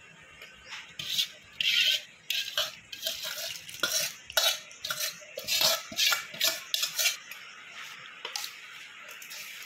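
Steel spoon stirring a thick, grainy pickle mixture in a stainless-steel bowl, with a run of scrapes and clinks against the bowl for about six seconds, then quieter. Cooled tempered oil is being mixed into the mango-carrot pickle.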